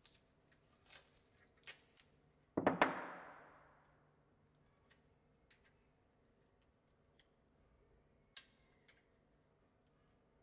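Masking tape being handled and torn while it is wrapped onto a flat drill bit as a depth mark: a louder rip about two and a half seconds in that fades over a second or so, among faint scattered clicks and taps.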